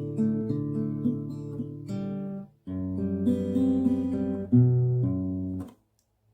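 Acoustic guitar played in sustained strummed chords. There is a short break about two and a half seconds in, and the playing stops abruptly near the end.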